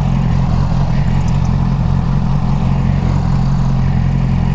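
Stock 2009 Yamaha R6's inline-four engine running steadily, with no revving.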